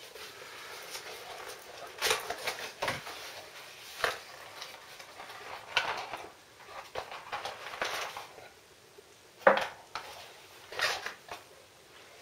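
Unpacking by hand: a cardboard box being opened and a plastic LED clamp lamp, its cable and plug adapter being pulled out and set down, with rustling cardboard and a string of irregular knocks and clatters. The loudest knock comes a few seconds before the end.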